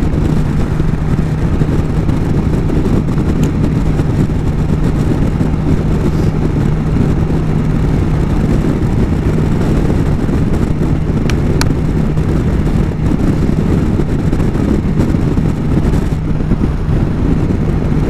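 BMW S1000 XR's inline-four engine running at a steady speed with an even engine note and no revving, under heavy wind rush on the rider's microphone.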